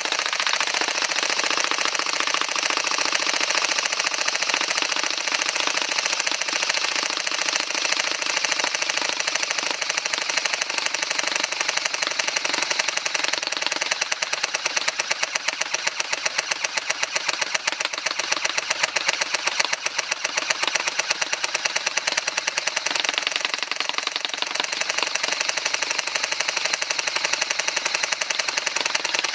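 A&K full-metal M60 airsoft electric gun firing BBs in one long, continuous full-auto burst, its motor and gearbox cycling rapidly. The rate of fire shifts as the rate-of-fire adjusting knob under the barrel is turned.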